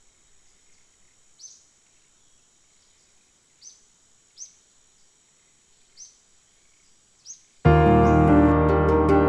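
Faint bird chirps, five short falling calls spaced a second or two apart, then piano music starts suddenly near the end and is much louder.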